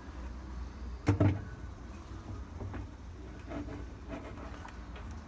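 Washing-machine agitator being fitted and pressed down onto its drive shaft, where it is held only by pressure: one sharp knock about a second in, then a few faint clicks.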